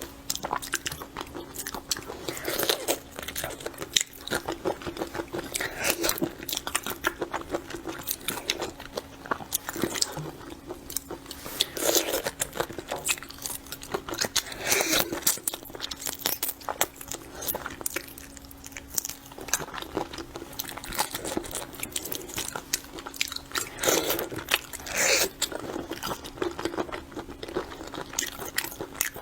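Close-miked eating of shrimp: a steady run of wet chewing, biting and crunching sounds. A faint steady hum runs underneath.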